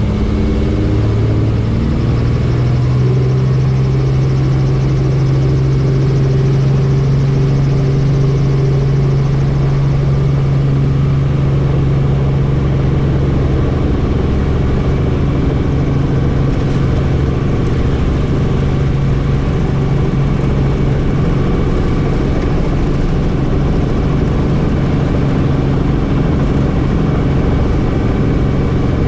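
Helicopter running, a loud steady engine and rotor hum with a noisy rush over it; the hum steps up slightly in pitch about a second and a half in.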